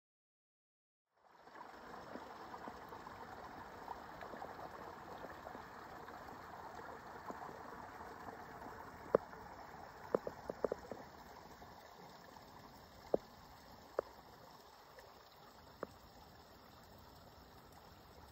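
Small rain-fed woodland stream trickling past a log, starting about a second in. Over it, a handful of sharp plops of raindrops landing on a jacket sleeve close to the microphone, bunched around the middle.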